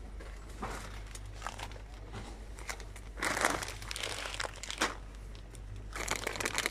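Plastic-bagged spice packets crinkling as they are handled, in rustling bursts about three seconds in and again near the end, over a low steady hum.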